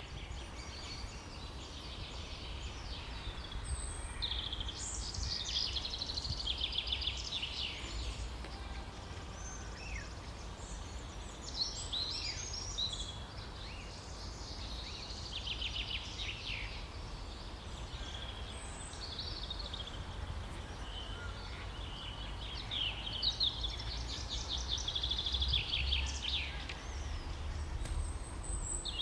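Songbirds singing, with phrases of rapid trills and chirps coming again and again, over a steady low rumble.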